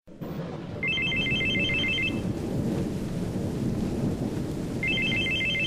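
Telephone ringing twice with an electronic trilling ring, each ring about a second and a half long and the rings about four seconds apart, over a steady low rumbling noise.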